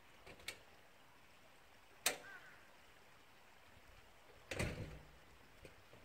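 A few sharp knocks against faint background: a light click about half a second in, the loudest knock about two seconds in, and a short cluster of knocks near the end.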